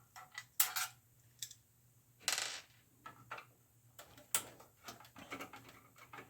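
Irregular small clicks, taps and knocks of parts being handled while a Macintosh Classic is taken apart, with a short scraping rustle about two seconds in.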